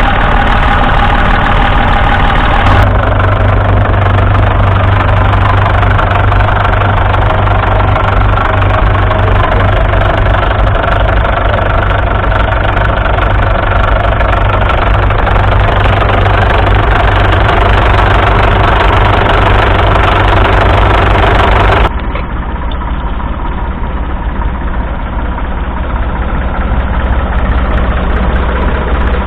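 Classic diesel tractor engines running steadily, the sound switching abruptly to a different engine about three seconds in and again about twenty-two seconds in, quieter after the second change.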